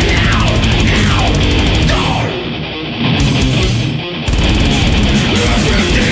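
Death metal band playing: distorted electric guitars over bass and drums. The drums and cymbals drop out twice, for about a second a little past two seconds in and again for a moment about four seconds in, before the full band comes back in.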